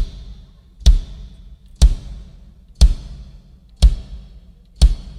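Kick drum struck alone at a steady pace of about one hit a second, six times, for a sound check: each hit a deep thud with a sharp beater click that dies away quickly.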